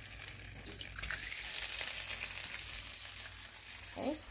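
Egg frying in a hot nonstick frying pan, a steady high sizzling hiss that swells about a second in as the freshly cracked egg lands in the pan.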